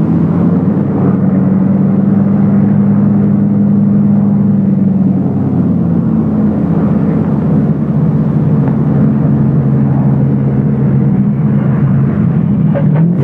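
Lockheed P-38 Lightning's Allison V-12 piston engine droning on a single-engine landing approach, the other engine shut down. Its pitch drops about halfway through as power comes off for the landing.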